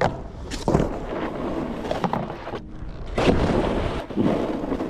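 Snowboard sliding and scraping over snow, with several sharp thumps and scrapes from the board, the strongest about a second in and again past the three-second mark.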